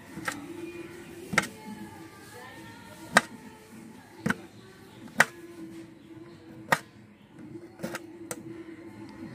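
A knife clicking sharply against a steel plate about once a second, eight times, as it scores cuts into a whole fish, over a steady low hum.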